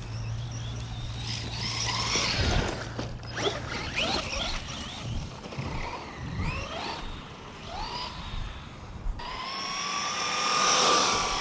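Electric RC car's motor whining in short bursts that rise and fall in pitch as it speeds up and slows, repeated many times. About nine seconds in it changes to a longer, steadier high whine.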